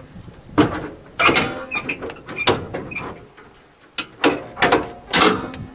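Sharp metal clicks and clanks from the hood latch and hood of a 1956 Ford Fairlane being worked to release the hood. Two bunches of knocks, a few with a short metallic ring.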